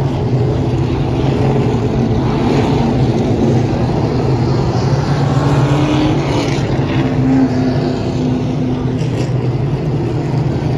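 A field of stock cars racing around a short oval, their engines running loud and steady. Individual engine notes shift in pitch as cars pass close by around the middle.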